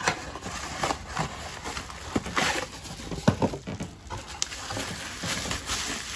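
Cardboard packaging and bubble wrap being handled: irregular rustling and crinkling with scattered sharp clicks as a small inner box is opened and a bubble-wrapped floodlight head is pulled out and unwrapped.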